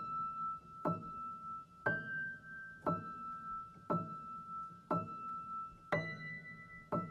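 Slow piano music: a note or chord struck about once a second, each left to ring, over the same repeated high note.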